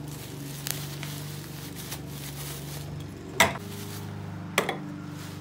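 Plastic bubble wrap rustling as heavy-duty swivel caster wheels are unwrapped and handled, with a few sharp clicks and knocks, the loudest about three and a half seconds in. A steady low hum runs underneath.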